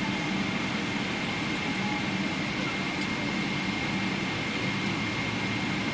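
Steady cabin noise inside a Boeing 777 airliner: engine and airflow noise with a hum and a thin, steady high whine.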